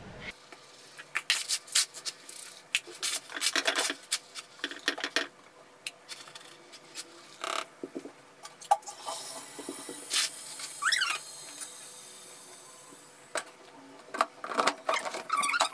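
Cat litter being scraped and rustled in a plastic litter tray, in irregular bursts of short scratchy strokes, with a brief high squeak about eleven seconds in.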